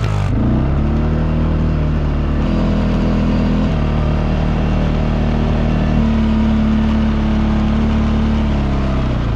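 ATV engine running steadily under way through snow, heard close from a camera mounted on the four-wheeler; its pitch shifts a few times and drops a little near the end.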